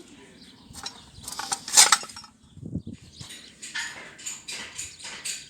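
Loose metal parts clinking and clattering as scrap metal is rummaged through, with the loudest clank about two seconds in and quicker rattling after that.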